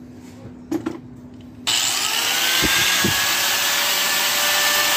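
Electric angle grinder switched on about a second and a half in, its motor whining up to full speed and then running steadily, not yet cutting into the compressor shell. A brief knock comes just before it starts.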